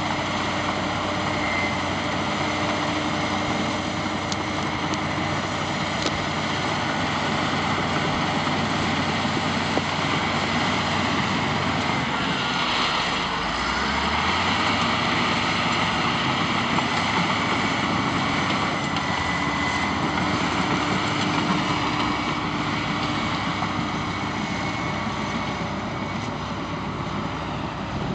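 Caterpillar D6 crawler dozer's diesel engine working under load as it pushes a pile of dirt and brush. The engine note rises about halfway through.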